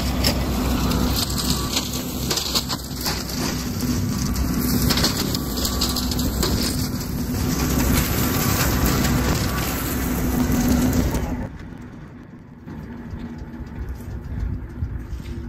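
Kubota L3901 compact tractor's three-cylinder diesel running with a Land Pride rotary cutter (brush hog) spinning behind it, shredding brush and dry leaves into mulch, with a steady low hum under the noise. The noise drops away sharply about eleven seconds in.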